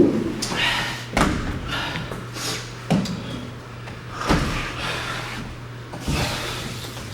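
A run of dull thumps and knocks, five in all, spaced a second or more apart, with hard, noisy breathing between them from a boxer getting his breath back after sparring.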